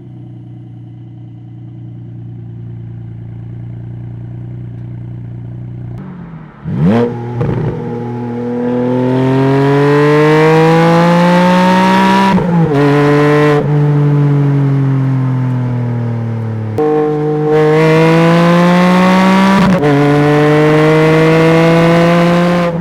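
Porsche Boxster GTS 4.0's flat-six through a titanium Akrapovic cat-back exhaust, idling steadily, then a sharp rev about seven seconds in. It then pulls hard, its note climbing in long sweeps that drop at each gear change, about halfway through and again near the end.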